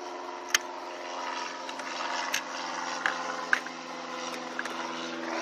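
Small propeller airplane's engine droning steadily as it flies past, with a few short clicks mixed in.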